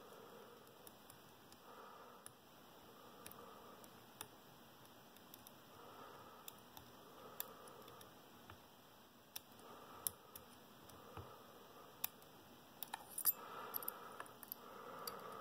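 Faint, scattered metallic clicks and ticks of a lock pick and tension tool working the pins of a Schlage Primus lock cylinder, with a quick run of clicks near the end.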